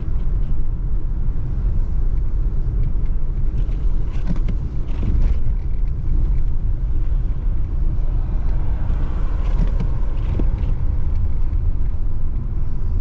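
Steady low rumble of a car driving, heard from inside the cabin: engine and tyres running over a snow-covered, unplowed street.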